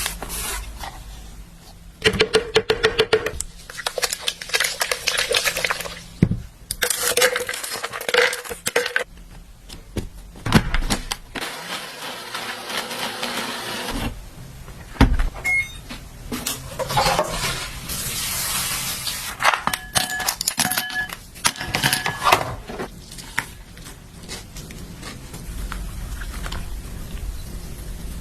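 Kitchen utensils and dishes clinking and scraping in a run of separate bouts, with a few seconds of steady hiss in the middle.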